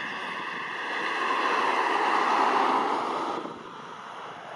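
Airbus A320-214's CFM56 jet engines running at low thrust as the airliner rolls along the ground: a steady jet whine and rush that swells to its loudest about halfway through, then drops off sharply a little after three seconds in.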